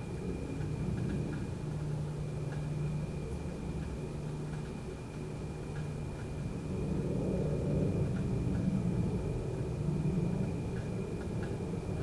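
Low rumble of distant road traffic that swells and fades as vehicles pass, loudest about two-thirds of the way through. Under it runs a steady high cricket trill, with scattered faint chirps.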